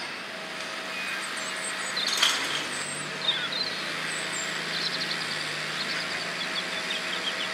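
Steady distant vehicle rumble with small birds chirping, and a sharp knock a little after two seconds in.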